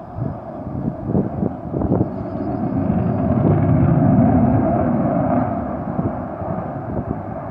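Jet noise from a MiG-29's twin RD-33 turbofan engines in a display pass, swelling to its loudest about four seconds in and then fading. Gusts of wind buffet the phone microphone in the first two seconds.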